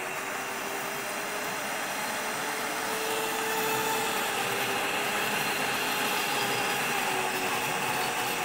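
Countertop blender running steadily at high speed, whipping marshmallow and heavy cream into a mousse, with a tamper pressed down through the lid. The motor's pitch lifts slightly about three seconds in.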